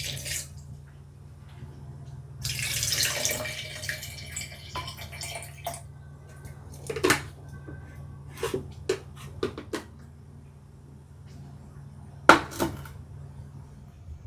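Tap water running for about three seconds, then a handful of short clinks and knocks of kitchenware, the loudest near the end, over a steady low hum.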